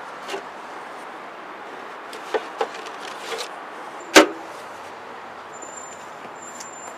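Metal mailbox being opened and handled: a few light clicks, then a single sharp metallic clack of the lid a little after four seconds in, against a steady outdoor background hiss. A thin high steady tone sounds faintly near the end.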